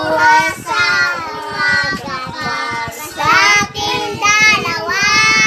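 A child singing a Tagalog song in a high voice, with long held notes in the second half.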